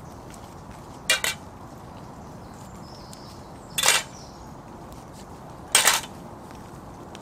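Metal camping pan being scrubbed clean with a handful of moss: three short scrapes, about one, four and six seconds in.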